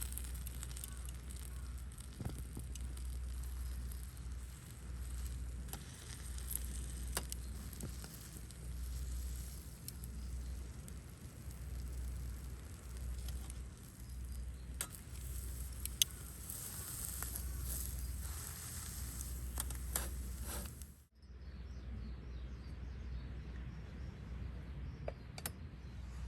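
Campfire crackling: a steady hiss with scattered sharp pops, over a low rumble that rises and falls. Everything breaks off for a moment about 21 seconds in and resumes more softly.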